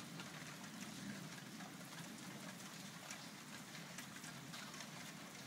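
Thunderstorm rain falling steadily, with many scattered drop ticks.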